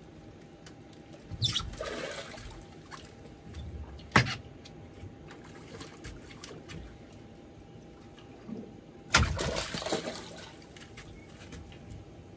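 Water splashing and sloshing twice, each for about a second, once early and once about three-quarters of the way through, with a single sharp knock between them about four seconds in.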